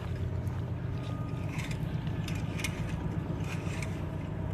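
A motor or engine running with a steady low hum, with a few faint clicks and scrapes over it.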